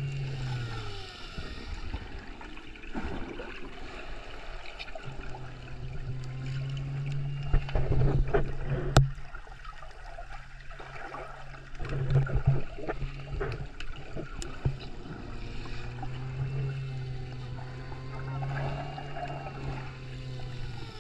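Muffled underwater sound of water moving and bubbling around a submerged camera, with a few knocks, the loudest about eight to nine seconds in. A low steady hum comes and goes in several stretches.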